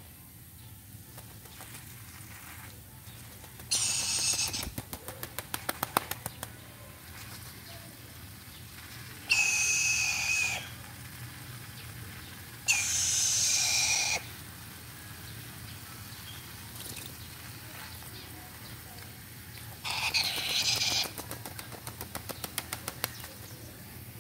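Chattering lory giving four loud, harsh screeches about a second long. After the first and last, a quick run of soft flaps follows as the wet bird shakes and flutters its wings.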